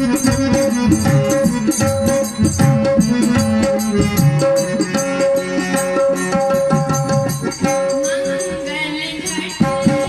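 Live mangal geet folk song accompaniment: harmonium playing a melody of held notes, with tabla and a fast, steady rattling percussion. A wavering singing voice comes in about eight seconds in.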